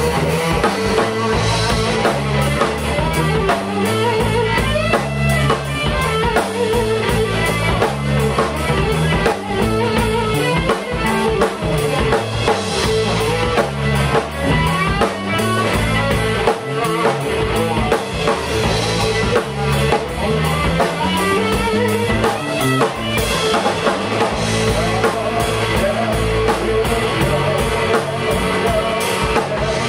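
A rock trio playing live: electric guitar, electric bass and drum kit in an instrumental passage with a steady beat.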